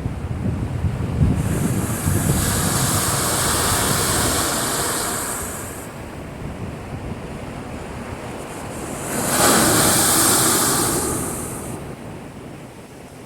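Heavy swell raised by an approaching typhoon, two big waves crashing in. The first breaks about a second in with a deep rumble, then a long rushing hiss. The second, shorter crash comes about three quarters of the way through.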